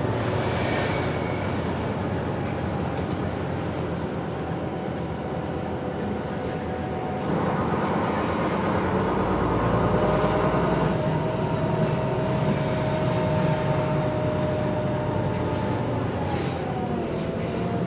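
Interior of an articulated MAN Lion's City G city bus on the move: steady engine and road rumble with a thin drivetrain whine that slides up and down in pitch with speed. The sound grows louder about seven seconds in as the bus pulls harder, then eases near the end.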